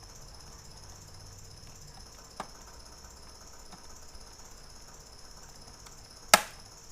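Sharp plastic clicks as the snap-fit case cover of an Acer Veriton N281G mini PC is pried open: a small click about two and a half seconds in and a much louder snap near the end, over a faint steady high hiss.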